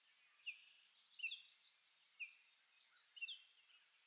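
Faint birds chirping: short, separate chirps every half second to a second over a soft high hiss.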